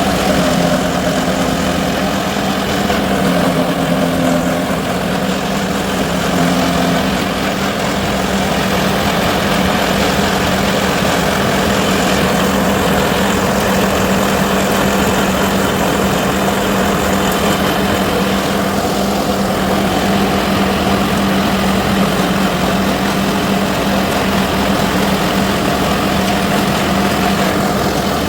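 SenRui silage harvester running steadily while working, its engine giving an unbroken, even hum over the noise of the machinery.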